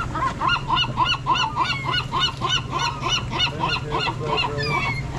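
Gull giving a long run of short, harsh calls, about five a second, that slows near the end. A steady low hum runs underneath.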